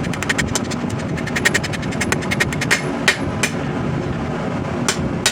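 Hammer blows on the rebar sword blade as it is forged to shape: a quick run of sharp strikes, then a few single blows spaced out, over a steady rumbling background.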